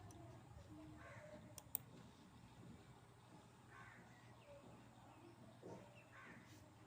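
Near silence with a faint low hum. A few faint short bird calls, like a crow's caw, come about a second, four seconds and six seconds in.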